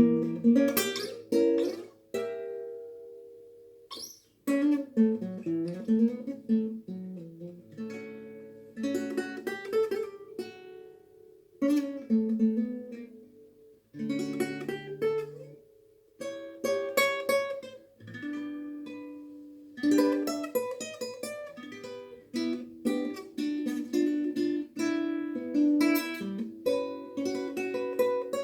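Acoustic guitar playing picked and strummed phrases, with brief pauses between them.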